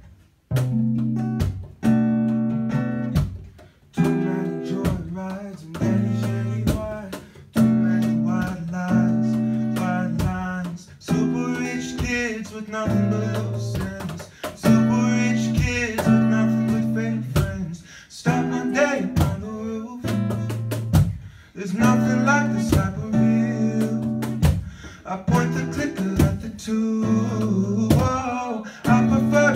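Live acoustic guitar played in a steady strummed rhythm, with a voice singing over it at times.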